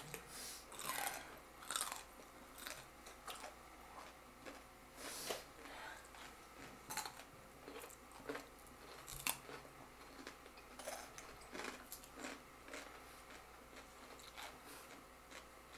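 Close-up biting and chewing of raw cucumber slices: soft, irregular crunches about once a second.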